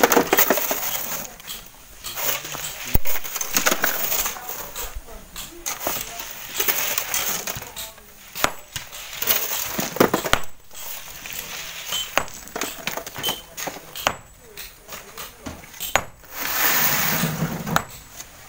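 Pieces of broken rock knocking and clinking against each other as they are handled, in sharp irregular knocks, with voices in the background.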